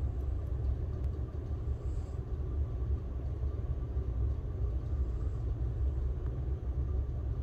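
Steady low background rumble with no speech; nothing else stands out.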